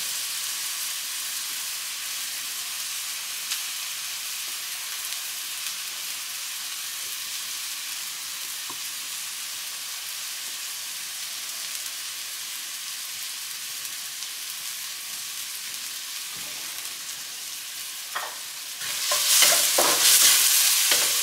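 Chopped onions and garlic sizzling steadily in olive oil in a wok on medium heat. Near the end a wooden spatula stirs them, scraping the pan in louder, uneven strokes.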